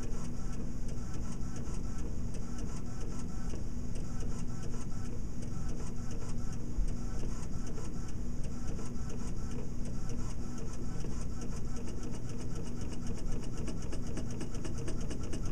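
Primera Bravo II disc publisher's built-in inkjet printer running as it prints a disc label: a steady mechanical whirr with fast, even ticking.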